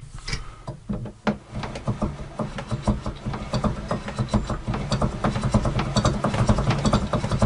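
Wooden tilt mechanism of a homemade table saw being cranked by hand: the threaded rod turning and the wooden gear teeth clattering in a rapid, continuous rattle of clicks over a low hum.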